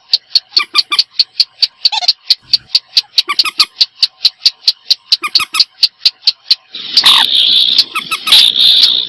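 Recorded calls of paddy-field rails (common moorhen and sintar sawah): a fast, even string of sharp clicking notes, about four or five a second, that turns into a louder, harsher run of calls about seven seconds in.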